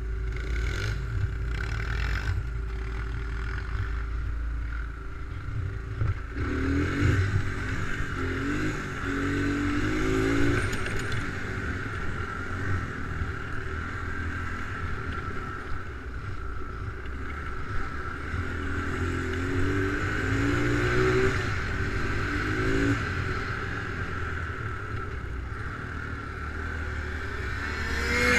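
ATV engine running, revving up and down about six seconds in and again about twenty seconds in.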